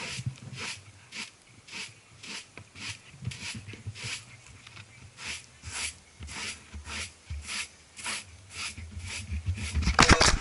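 Broom sweeping a carpet in quick regular strokes, about two or three a second. Near the end comes a loud rustle and knock right at the microphone as the camera is jostled.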